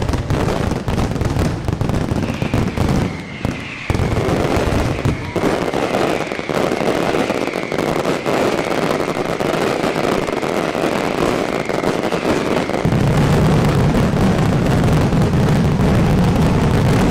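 Fireworks display: dense crackling and bangs of aerial shells, with a run of short repeated whistles through the middle. About three-quarters of the way in, the bangs merge into a continuous heavy rumble of a rapid barrage.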